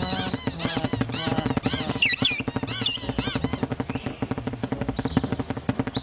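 Cartoon birds squeaking and chattering in a rapid run of high chirps, with a few squealy rising and falling cries, over a bouncy music score. The chirping thins out a little past halfway.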